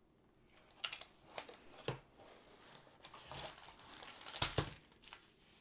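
Plastic and paper packaging crinkling and rustling by hand as a diamond painting kit's contents are pulled out of a cardboard box, with several sharp crackles.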